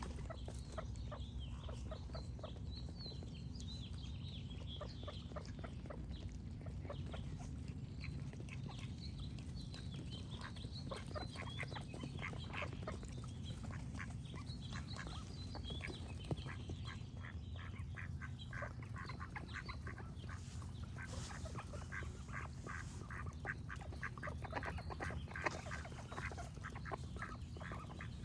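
Ducks quacking in repeated short calls, coming thick and fast in the last third, with small birds chirping high above in the first half. A steady low hum runs underneath.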